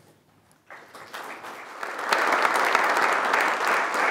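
Audience applauding: a few scattered claps begin just under a second in and swell into full, steady applause by about halfway through.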